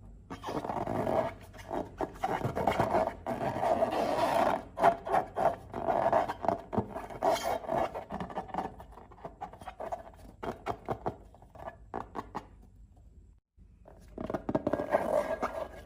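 Slime being worked and scraped, a wet, crackly scraping and squishing with many small pops and clicks. It stops for a moment near the end, then starts again.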